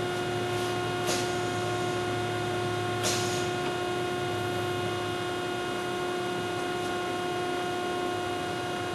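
Steady electrical hum with a pitched tone and evenly spaced overtones from a CNC section-bending machine standing under power, with two brief sharp noises about a second and three seconds in.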